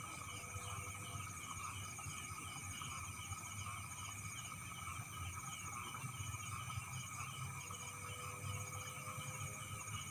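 Night chorus of crickets and frogs, steady trilling with a chirp pattern repeating several times a second, over a low rumble.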